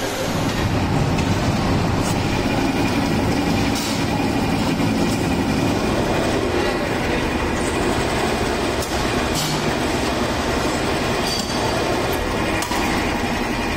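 Steady din of pan-factory machinery: a dense rumbling, rattling noise, with a few sharp clicks over it.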